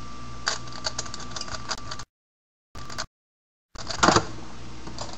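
Mirror blocks puzzle cube being turned fast by hand, its plastic layers clicking in quick irregular runs, then a knock about four seconds in as the cube is put down on the wooden table. The sound cuts out completely twice, briefly, in the middle.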